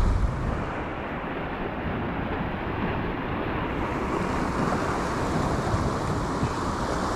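Sea surf washing against a rock seawall, with wind buffeting the microphone: a steady rushing noise.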